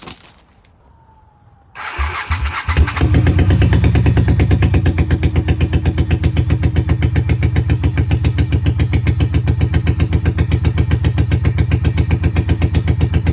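Honda Shadow 750 motorcycle's V-twin being started: after a short quiet spell the starter cranks, the engine catches about two seconds in and settles into a steady, evenly pulsing idle. It is running on a fresh battery after an oil change.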